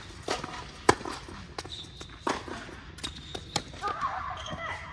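Tennis ball being hit and bouncing: a series of sharp knocks, the loudest about a second in, with a few brief high squeaks between them.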